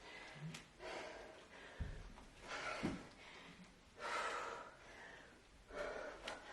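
A woman breathing hard under exertion, with forceful exhalations and gasps about every second and a half, during a set of kettlebell lunges to jump lunges. Two brief low thuds sound around two and three seconds in.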